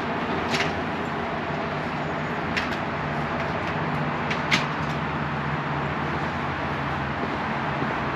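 Small single-cylinder motorcycle engine running under way, with steady wind noise over the microphone and a few short clicks.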